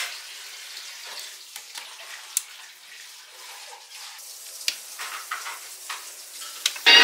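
Rustling and crinkling of a cookie house kit's packaging being handled, with scattered light clicks and taps.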